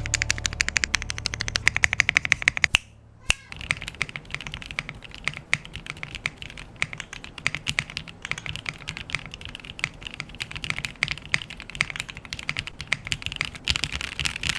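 Rapid typing on a foamless mechanical keyboard fitted with Frankenswitch Cherry MX Black switches and ABS keycaps: a fast run of loud key clacks, a short pause about three seconds in, then steadier, somewhat quieter typing.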